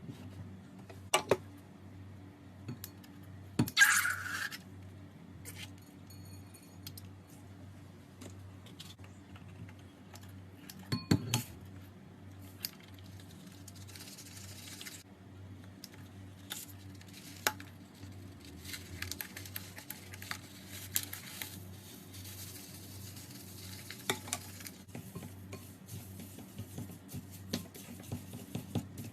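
Scattered clicks, taps and rustling from hands handling slime-filled balloons, over a low steady hum. A louder, short hissing burst comes about four seconds in.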